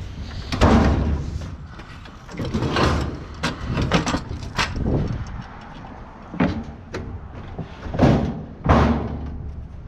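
Irregular knocks, scrapes and rattles of a metal household appliance being handled, with several louder thuds spread through, two of them near the end.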